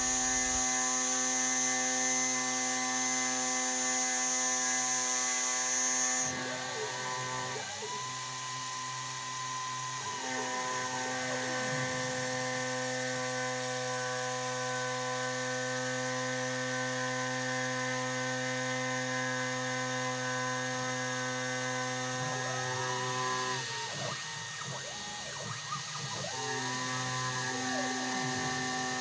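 Homemade CNC mill running, its 4 mm two-flute carbide end mill cutting an aluminium block with a steady machine hum and a high whine. Twice, tones glide up and back down in pitch as the machine moves along the toolpath.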